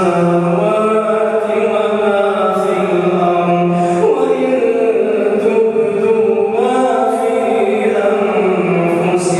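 A man's voice reciting the Quran in a melodic, chanted style, drawing out long held notes that shift up and down in pitch between short hissed consonants.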